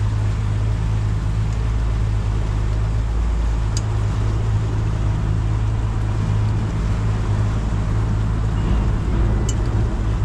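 Yamaha 300 outboard motor running steadily, a constant low hum under a haze of water and wind noise.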